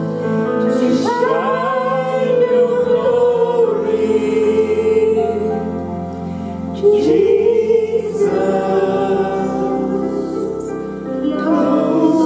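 Two women singing a slow worship song over sustained electronic keyboard chords.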